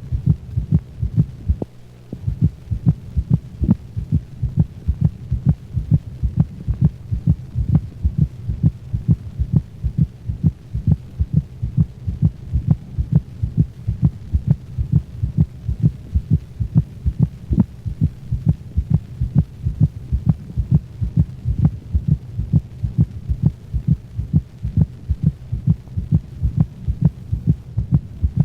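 Canine heart sounds recorded through a stethoscope: a steady rhythm of beats in which the second heart sound is split into two close, higher-pitched sounds, giving a "lub-drup" rhythm. The split comes from heartworm disease, where pulmonary hypertension delays closure of the pulmonic valve.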